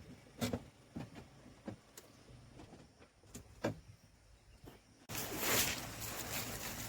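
Scattered footsteps and small knocks on a forest trail, irregular and a few to a second, then an abrupt change about five seconds in to a louder steady rushing noise.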